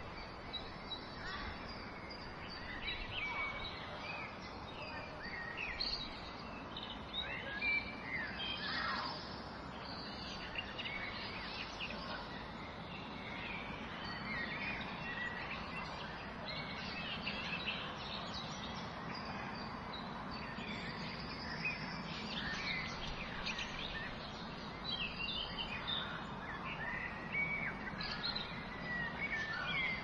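Several birds chirping and whistling in short, overlapping calls over a steady outdoor background hiss.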